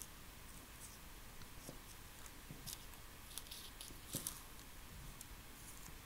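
Scissors cutting through pattern paper: faint, irregular snips with the rustle of the paper sheet.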